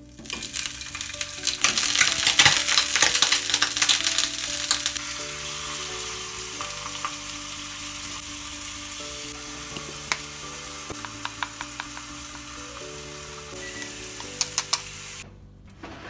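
A slice of pork frying in a hot rectangular tamagoyaki pan: it sizzles and crackles loudly as it goes in, then settles into a steady sizzle that cuts off abruptly near the end.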